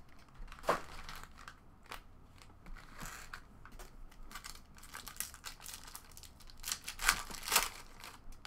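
Foil trading-card pack wrappers crinkling and tearing as packs are handled and ripped open, with louder rips about a second in and twice near the end.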